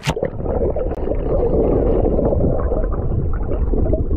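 Flowing stream water heard through a submerged camera. It starts with a sharp splash as the camera goes under, then runs on as a steady, muffled, rumbling gurgle.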